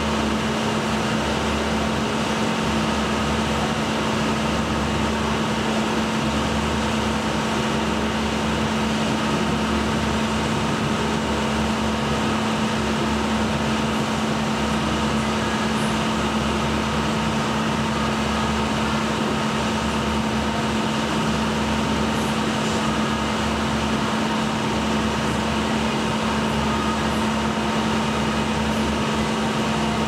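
Steady mechanical hum: a constant low drone with several fixed higher tones above it, unchanging in level.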